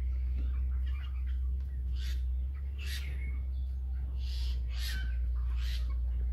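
A flock of broiler chickens giving about five short, harsh calls, spread between about two and six seconds in, over a steady low hum.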